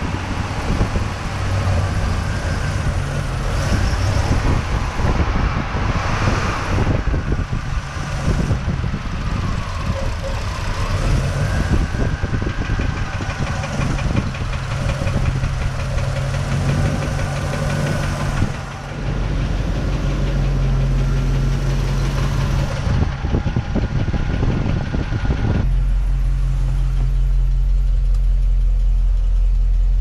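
International Scout's IH V8 idling hot with a rapid ticking and knocking noise that comes and goes, which the owner suspects is a failed camshaft bearing or rocker assemblies running dry. Near the end the sound becomes a steadier, deeper engine hum.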